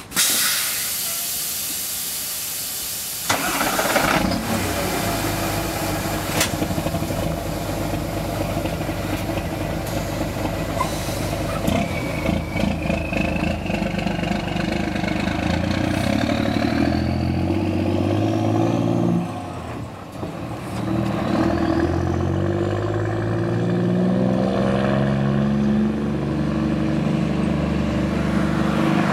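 A hiss, then a Scania R420 truck's diesel engine starts about three seconds in and runs loud through its side exhaust, which has its exhaust flap open. The engine note rises and falls in repeated steps as the truck revs and pulls away, with a brief drop in level about two-thirds of the way through.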